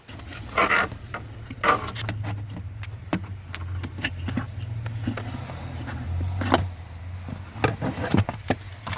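Hand tools clicking and scraping as the mounting screws of a blower motor resistor are driven in, in short bursts, the loudest about a second in and near the end. A steady low hum runs under it.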